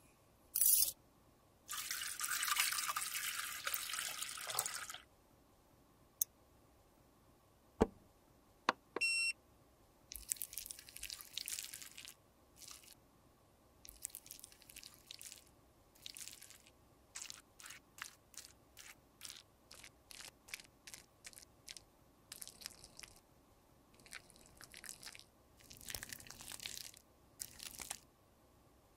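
Close-up handling sounds of small objects: a hiss lasting about three seconds near the start, a few sharp clicks with a short beep, then many short scraping and crackling strokes.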